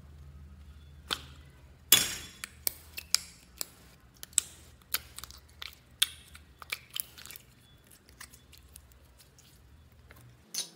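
Slime being pulled out of a bear-shaped plastic container: a run of sharp plastic clicks and crackles between about one and seven and a half seconds in, then quieter handling as the bead-filled slime is pressed down, with one more click near the end.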